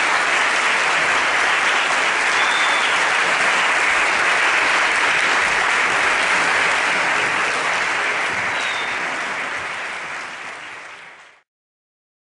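Audience applauding steadily after a string orchestra performance. The applause fades over the last few seconds and then cuts off.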